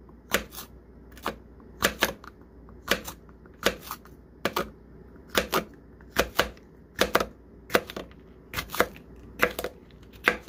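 Kitchen knife slicing a yellow bell pepper into rings on a plastic cutting board: sharp knocks of the blade on the board, about one a second, many as quick double knocks.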